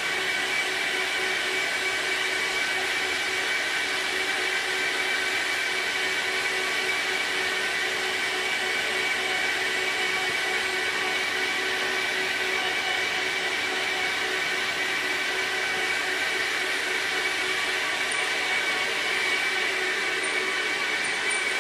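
A machine running steadily: an even rushing noise with a constant whine held throughout.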